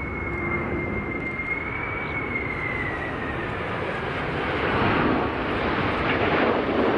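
McDonnell Douglas MD-11 trijet on final approach: its jet engines give a high whine over a broad roar. The roar grows louder about five seconds in as the aircraft comes closer.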